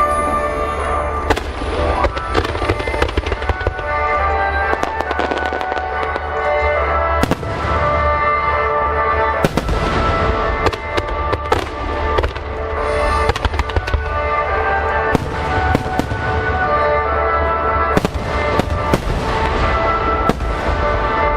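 Large aerial fireworks shells bursting, many sharp bangs at irregular intervals with crackling trails, over music played through loudspeakers that holds sustained notes.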